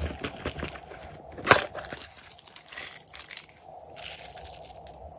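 Silicone pop-it fidget toy being pressed: a run of small popping clicks with one louder pop about one and a half seconds in. Later, small plastic confetti shapes scattered from a hand, two soft rustling patters.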